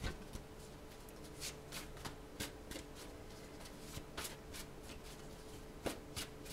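A Northern Animal Tarot deck of linen-finish cards being shuffled by hand: soft, quick card strokes at irregular intervals, about one every half second, over a faint steady hum.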